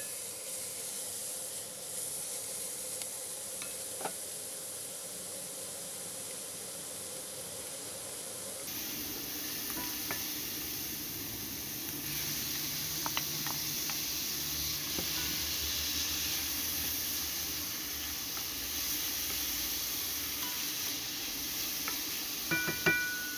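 Chopped onion, garlic, ginger and green chillies sizzling in oil in a non-stick pan, stirred with a wooden spatula with occasional light taps on the pan. About nine seconds in, once chopped tomatoes are in, the sizzle grows louder and fuller as they are stirred.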